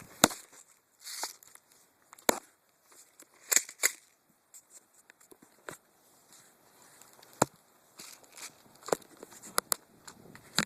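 About ten single sharp cracks of airsoft guns firing, spaced irregularly, the loudest near the start and in the middle.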